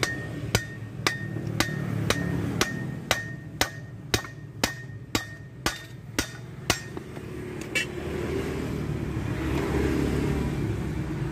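Hammer strikes on metal, evenly paced at about two a second, each with a short ringing note; they stop about seven seconds in. A low rumble swells over the last few seconds.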